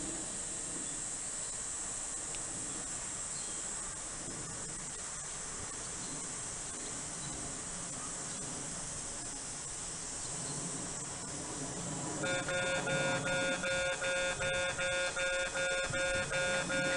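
Steady background hiss. About twelve seconds in, a Japanese railway level crossing's electronic warning bell starts, ringing a bright, many-toned ding a little under twice a second, the signal that a train is approaching.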